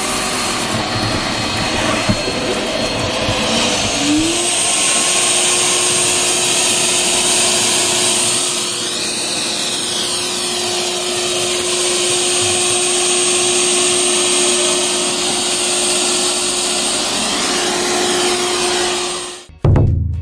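Clien R9 robot vacuum running at full suction, a loud steady rush of air with a motor whine that rises in pitch about four seconds in and then holds, typical of auto turbo raising the suction on carpet. The sound cuts off suddenly near the end.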